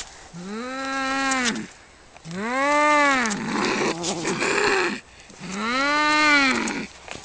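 Cats yowling in a fight: three long, drawn-out wails that rise and then fall in pitch. The second wail breaks into a rough, noisy growl before the third begins.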